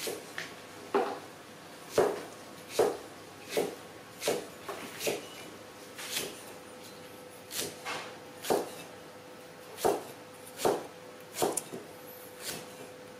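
A series of short, sharp knocks, roughly one or two a second at an uneven pace, over a faint steady hum.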